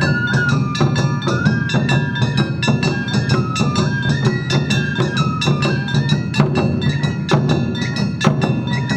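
Awa Odori festival music: a bamboo flute playing a stepping melody over a steady beat of small kane gongs and drums.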